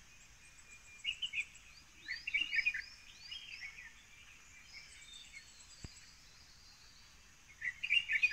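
Birds chirping in short phrases, about a second in, again a second later, and near the end, over a faint steady high-pitched insect drone.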